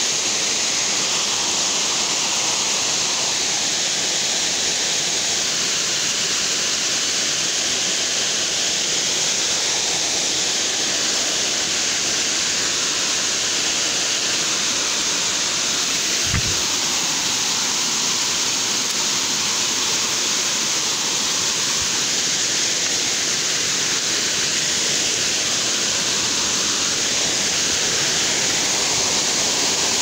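Steady rushing of a waterfall and its rocky stream, an even roar of falling water that never lets up. About halfway through there is a single dull bump.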